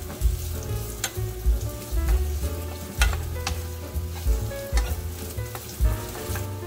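Carrot sticks sizzling in hot oil in a nonstick frying pan as they are stirred with a wooden spatula, with a few sharp knocks of the spatula against the pan. Background music with a steady low beat plays underneath.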